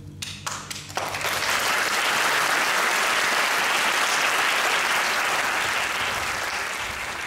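Audience applauding: a few scattered claps, then full applause about a second in that holds steady and eases off near the end.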